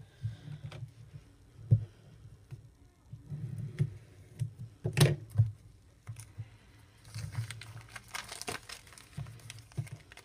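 Stack of paper journaling cards being handled on a wooden table: scattered taps and light knocks, with a stretch of rustling and crinkling about seven to nine seconds in.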